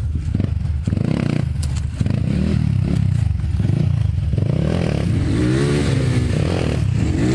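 Dirt bike engine revving in repeated surges, the revs rising and falling as the rider works the throttle to climb over rocks. A few sharp clacks come early on.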